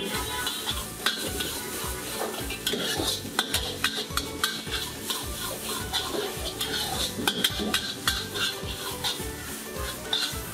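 Metal wok spatula scraping and clanking repeatedly against a steel wok as vegetables are stir-fried, the food sizzling in the hot pan.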